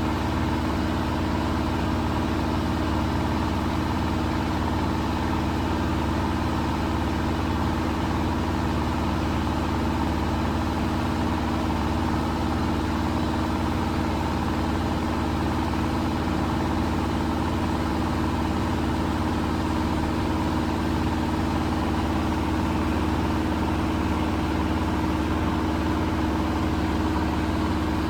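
Miele Professional laundry machine running steadily: a constant low hum with a steady motor tone, holding the same speed and level throughout.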